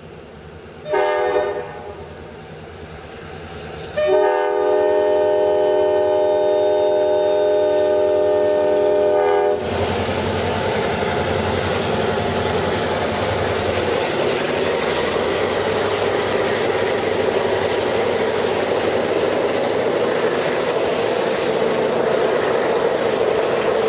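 GP38 diesel locomotives' air horn blowing a short blast, then a long one held for about five and a half seconds. The locomotives then pass close by with a sudden loud roar of their EMD two-stroke diesels working under load up the grade, followed by the steady rumble and clatter of freight car wheels on the rails.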